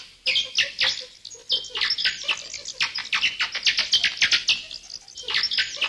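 Small birds singing: a dense stream of quick, high chirps and trills, with short lulls about a second and a half in and near the end.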